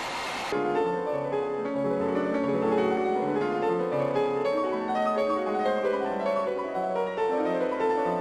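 Background piano music: a steady run of notes over a lower bass line, starting about half a second in.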